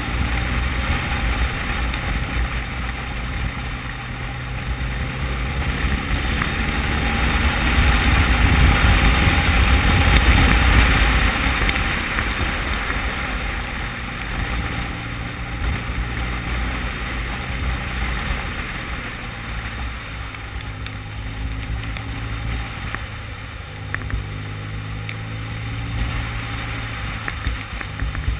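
Motorcycle engine running at a steady road speed under loud wind rush on the microphone. The wind swells for a few seconds about a third of the way in, then eases.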